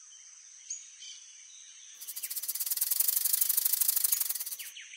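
Cartoon snake sound effect: a fast, buzzing rattle with a hiss. It comes in about two seconds in, swells, and stops sharply near the end.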